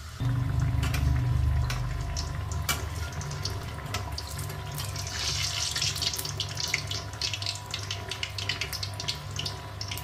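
Malpua batter deep-frying in hot oil in a brass kadhai: sizzling that jumps up loudly just after the start as the fresh batter hits the oil, then steady bubbling with crackling pops, the hiss swelling again in the middle.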